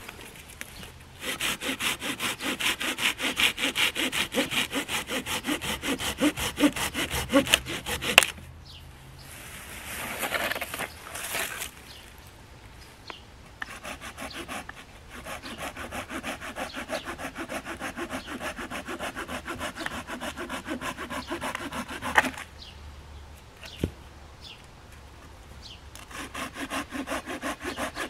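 Silky GomBoy folding pruning saw cutting through a dry fallen branch, in quick, even back-and-forth strokes. The sawing comes in three bouts with two short pauses between them.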